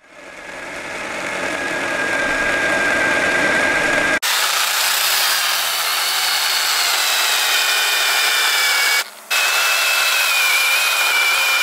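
Small battery-powered mini chainsaw cutting into a pine trunk: a steady high-pitched electric motor whine with the chain rasping through the wood. It builds up over the first couple of seconds and breaks off briefly twice, about four and about nine seconds in.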